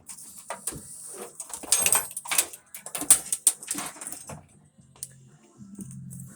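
Wire harness being pulled out from behind a car's dashboard: irregular rustling, scraping and clacking of wires and plastic connectors for about four seconds, then quieter, with a faint low hum near the end.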